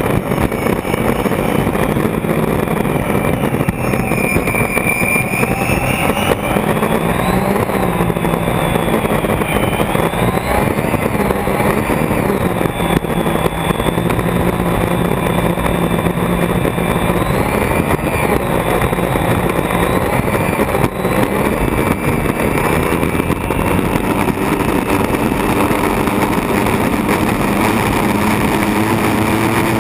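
Unlimited hydroplane's Lycoming T55 turbine engine running hard at racing speed, heard from inside the cockpit along with steady wind and water rush. Its whine drifts up and down in pitch as the throttle changes.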